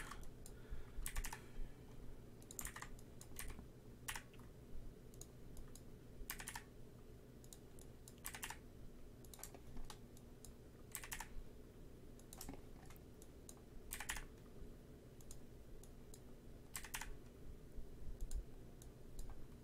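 Faint, irregular clicks of a computer keyboard and mouse, roughly one a second, as vertices are selected and moved in 3D modelling software, over a low steady hum.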